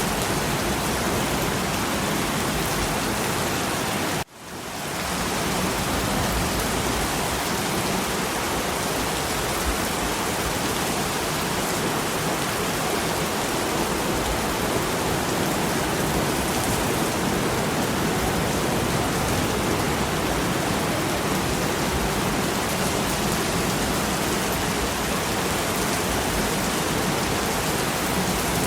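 Steady rain falling, an even hiss with no separate drops standing out. About four seconds in the sound drops out abruptly and fades back up over a second or so, then carries on unchanged.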